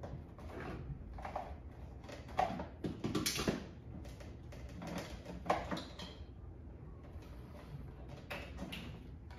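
Handling noise from a black hose and cables being coiled and hung on a wall-mounted bracket: irregular rustling, scraping and light knocks, busiest in the middle, with a sharper knock about five and a half seconds in.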